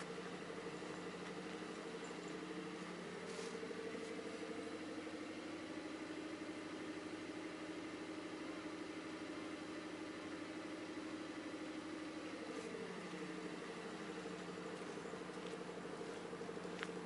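Steady mechanical hum of a running machine or engine. A second tone rises a few seconds in, holds steady, and falls back about two-thirds of the way through.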